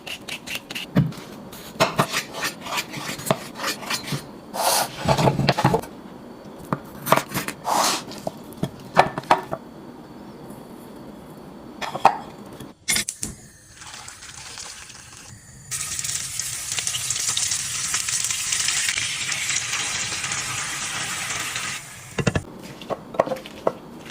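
Kitchen utensils clinking and knocking against a bowl or pan as the chicken lollipop mixture is stirred, followed by a steady sizzle of chicken lollipops frying in hot oil for about six seconds before it cuts off.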